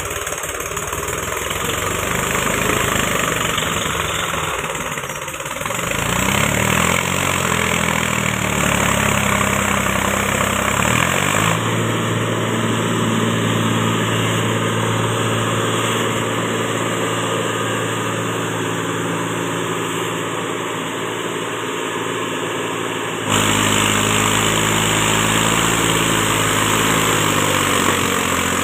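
Mahindra 275 DI tractor's three-cylinder diesel engine running under load as it pulls a loaded trolley through mud, revving up about six seconds in. The engine note shifts abruptly twice.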